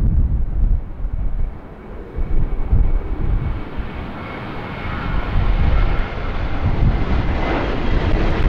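Boeing 737-700's CFM56 jet engines at takeoff thrust during lift-off and climb-out: a loud, steady jet roar with a heavy low rumble. A faint high whine shows through in the middle.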